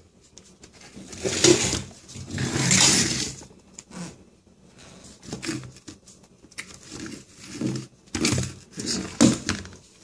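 Irregular handling and shuffling noises as a cordless impact wrench is picked up, moved and set down on a stone countertop; the wrench itself is not running.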